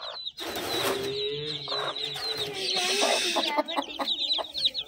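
Agitated broody hen giving a low, drawn-out clucking call as she guards her chicks, with the chicks peeping high and fast around it. A rustling scuffle starts about half a second in.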